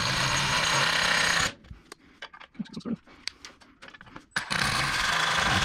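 Cordless impact driver running in two bursts while fastening the opener's header bracket into wood. The first burst stops about a second and a half in, and a second starts near the end, with a few small handling clicks in the quiet gap between them.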